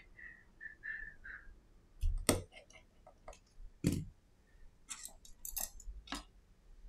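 Small repair work on an iPhone SE: faint squeaks as a precision screwdriver turns in the phone, then two sharp knocks about two and four seconds in and a run of light clicks as the screwdriver and phone are handled and set down on the repair mat.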